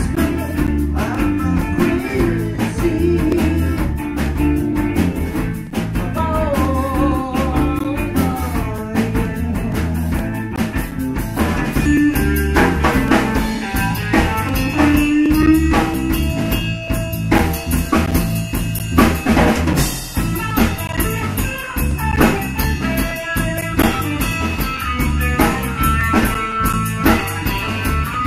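A live blues-rock band of electric guitar, electric bass and drum kit playing continuously, with a steady drum beat.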